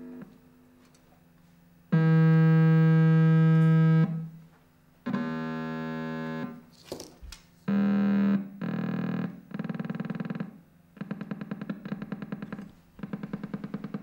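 Hand-built integrated-circuit oscillator sounding buzzy electronic tones as its frequency is changed to set the rhythm of a sound sculpture. A loud steady buzz lasts about two seconds, shorter tones at slightly different pitches follow, and the last few seconds turn into rapid even pulsing.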